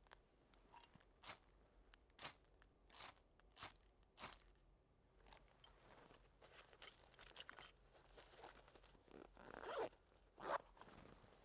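A hand-held fire starter struck repeatedly at a birch-bark tinder bundle: about five short sharp scrapes in the first four seconds, a quick scratchy run about seven seconds in, then two longer, louder scrapes near the end as a small flame catches.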